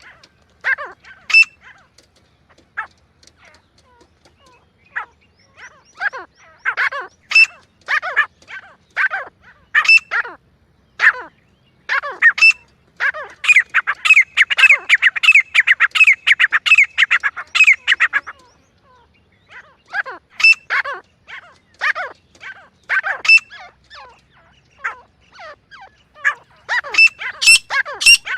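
Grey francolin calling: a long series of short, sharp notes, packed densely in the middle. After a brief pause the calls quicken again near the end.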